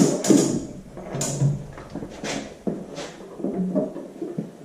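Irregular metal clinks and knocks, about seven of them, from bolts and heavy cast parts being handled while the tractor engine is lined up and bolted to the transmission bell housing.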